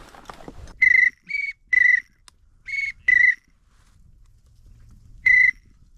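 Duck whistle call blown in short, clear toots: five quick notes in two bunches, then one more after a pause, the kind used to call pintails and mallards in to the decoys.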